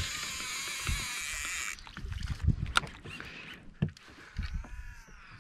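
Fishing boat on the water: a steady hiss for nearly two seconds that cuts off suddenly, then scattered knocks and low thumps around the deck and hull, with a brief arching whistle-like tone near the end.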